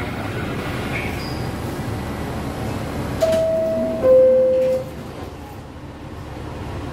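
R62 subway car's door-closing chime: two steady tones, a higher then a lower one, each under a second, about three seconds in. The sliding doors close as the chime ends, over the steady hum of the stopped train.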